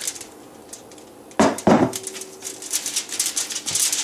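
Gloved hands slapping and pressing a mound of ground beef flat on aluminium foil over a wooden cutting board. There are two loud slaps about a second and a half in, then a run of quick crackly pats with the foil rustling.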